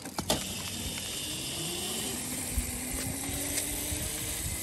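Razor electric dirt bike's motor and chain drive whining, rising slowly in pitch as the bike speeds up on its 48-volt lithium battery, with a couple of sharp clicks right at the start.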